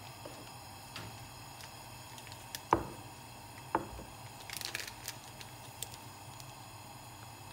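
A ceramic mug set down on a hard countertop: a sharp knock with a short ring about a third of the way in, a second lighter knock a second later, then a cluster of small clicks. A steady low hiss from the lit gas burner runs underneath.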